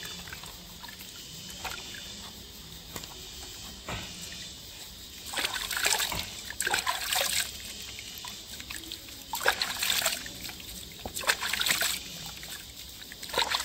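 Water trickling and splashing as a German Shepherd puppy's body is washed, with four louder splashes in the second half.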